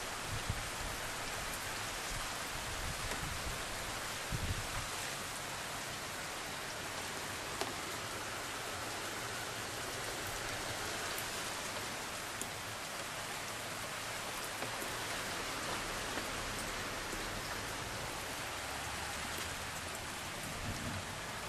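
Steady heavy typhoon rain falling and splashing on surfaces, with a few brief low thumps about half a second in, around four and a half seconds in, and near the end.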